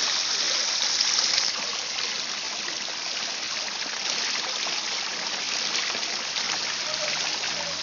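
Cast stone three-tier fountain running: water jets from lion-head spouts and spills from the upper bowl, splashing steadily into the basin below.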